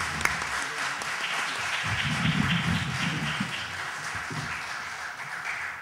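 Audience applauding steadily, ending abruptly at the close.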